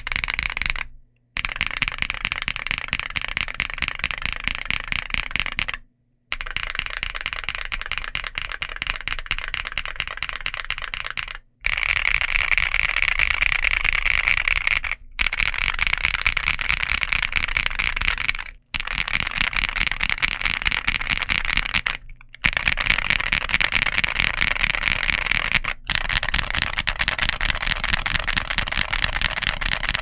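Continuous fast typing on a Womier RD75 mechanical keyboard fitted with full-POM linear switches and double-shot PBT Cherry-profile keycaps: a dense clatter of keystrokes. It breaks off abruptly in several brief silent gaps.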